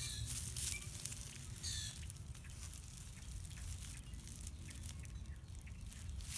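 Small birds chirping in a few short calls in the first couple of seconds, with scattered light ticks over a steady low rumble.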